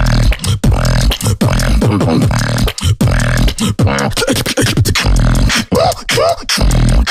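Beatboxing: a vocal drum pattern of deep bass hits and sharp clicks in a fast, steady rhythm, with falling pitch sweeps between the beats.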